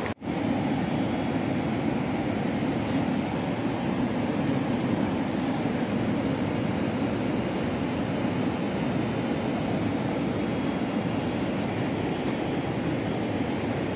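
Steady rushing roar of a fast mountain river running over rocks and rapids, with a brief dropout just at the start.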